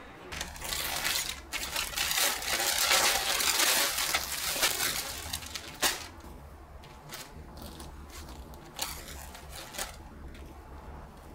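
A clear plastic storage bag crinkling and rustling as it is handled, loudest in the first half, followed by a few light taps and clicks as clothes are laid on it.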